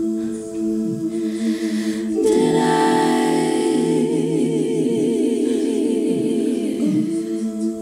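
A woman's voice singing a cappella over a loop of her own held vocal harmonies, layered on a loop station. About two seconds in, a louder live sung line with a wavering vibrato comes in on top of the steady chord.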